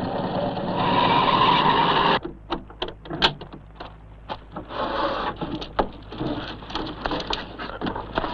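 A van braking to a stop with a squeal, which cuts off abruptly about two seconds in. Then comes a run of scattered clicks and knocks: the van's door being opened and a wicker hamper handled.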